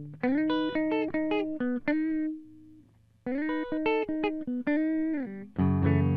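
Electric guitar (Squier Paranormal Offset Telecaster) played clean with its Lollar Royal T neck pickup wired in series: a single-note melodic phrase, a short pause about three seconds in, the phrase again, then louder strummed chords near the end.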